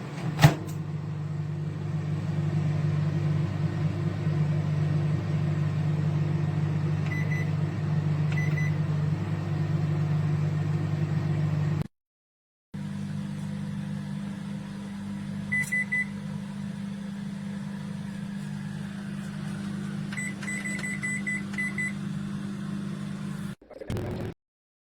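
Candy Smart CMG2071DS microwave oven running with a steady low hum, with a click about half a second in. Short high beeps sound now and then, with a quick run of about five beeps near the end. The hum breaks off briefly midway and stops just before the end.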